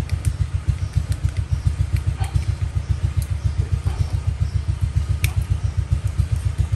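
A small engine running steadily, a low throb at about eight pulses a second and the loudest sound throughout. Over it come a few light metallic clicks as pliers bend the wire trigger of a wire-mesh rat trap.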